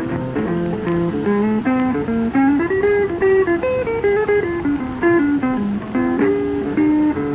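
Background music: an acoustic guitar picking a melody, its notes plucked one after another.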